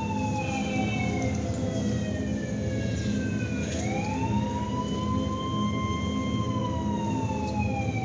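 Emergency-vehicle siren wailing over loudspeakers, as the soundtrack of a projected film. Its pitch falls slowly for about three and a half seconds, swoops back up, holds, and falls again near the end, over a steady low drone.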